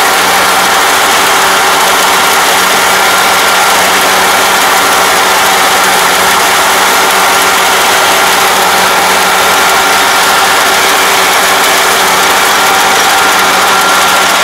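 Crawler rice combine harvester running at close range as it cuts rice: a loud, steady mechanical din of engine and threshing works, with a constant whine over it.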